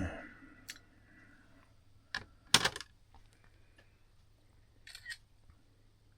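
Metal clock movement parts and tools clicking and clinking as a Seth Thomas movement is taken apart: a sharp clink at the start with a brief ringing after it, then a few scattered clicks, the loudest about two and a half seconds in.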